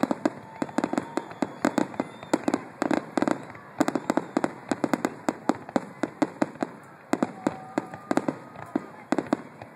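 Fireworks finale barrage: aerial shells bursting in quick succession, several sharp bangs a second with no let-up.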